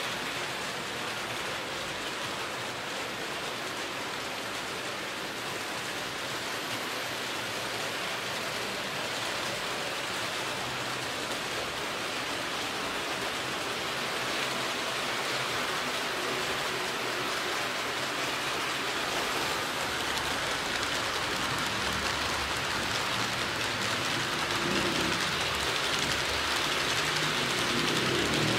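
Frateschi HO-scale model freight trains rolling along the track, a steady rushing hiss of small metal wheels on rails. A low rumble joins it about halfway and grows toward the end as the cars pass close.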